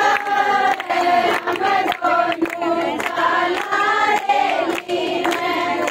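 A group of women singing a folk-style song together, with hand clapping throughout.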